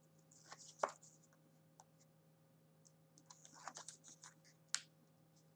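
Faint handling of paper and card while double-sided tape is stuck down: two short spells of light rustling and scraping, one near the start and one after about three seconds, with a few small sharp clicks.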